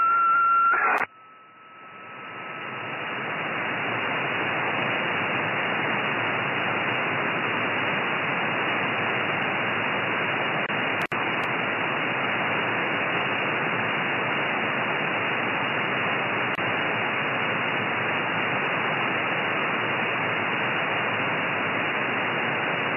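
Receiver audio from an RTL-SDR tuned to the 13 cm band on SSB: a steady whistle from the strong station's signal cuts off about a second in as the transmission ends. Band noise hiss then swells up over a few seconds as the receiver's slow AGC recovers, and stays steady, with a momentary dropout about eleven seconds in.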